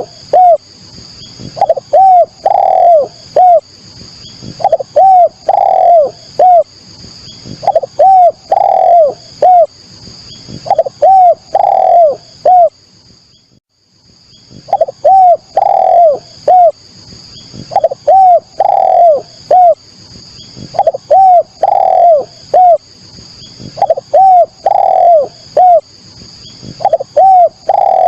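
Spotted dove (derkuku) cooing: a short phrase of three or four arching coos, repeated about every two seconds, with one pause of a couple of seconds midway. A faint, steady, high chirping runs underneath.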